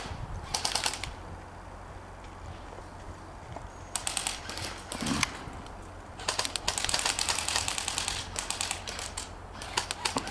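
Airsoft electric guns firing bursts on full auto, each burst a fast run of sharp clicking shots. There is a short burst early, another about four seconds in, then a long burst of about two seconds followed by a few shorter bursts near the end.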